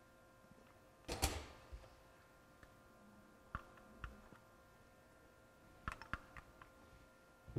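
Light clicks and short scrapes of small hand tools working on a circuit board while a capacitor is replaced, the loudest a brief scrape about a second in, followed by a handful of sharp ticks, over a faint steady hum.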